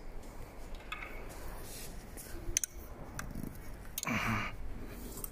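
Scattered light clicks and rattles from an e-bike's pedal and chain drivetrain as the pedals are turned for a pedal-assist test, with a brief louder rustle about four seconds in.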